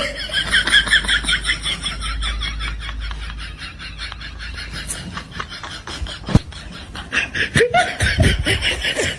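Laughter: a long, rapid run of laughs, with a low rumble under it for the first several seconds.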